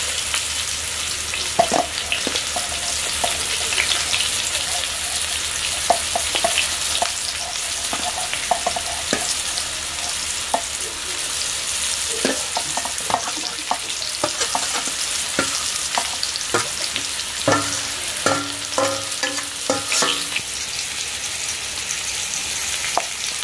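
Potatoes sizzling steadily as they fry in hot oil, with a metal spatula scraping and clinking against a steel plate as fried onions, garlic and tomato are scraped off it, squealing a few times near the end.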